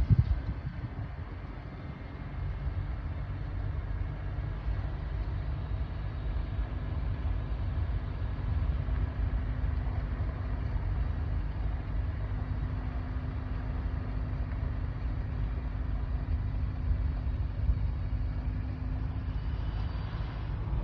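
Car moving on the road, with a steady low rumble of road and engine noise and a faint steady hum. A single sharp thump right at the start.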